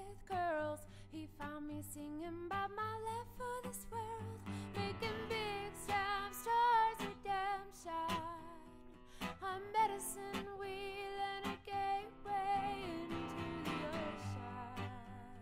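Background music: a song with a singing voice and guitar accompaniment.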